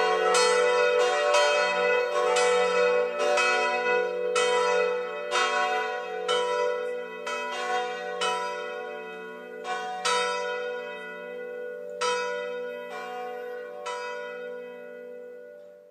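Church bells ringing, about two strokes a second over a steady humming ring. The strokes slow and the peal fades, dying away at the very end.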